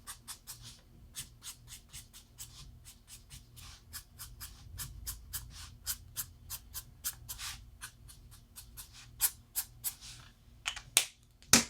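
Alcohol marker tip flicked across paper in quick short strokes, about three or four a second, colouring hair, with a sharper click near the end.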